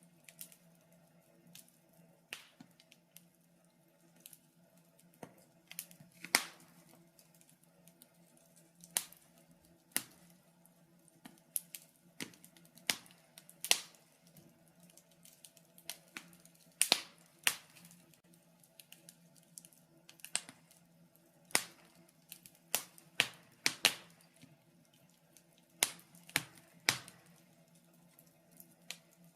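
Wood fire in a fireplace crackling: irregular sharp pops and snaps, some much louder than others, over a faint steady low hum.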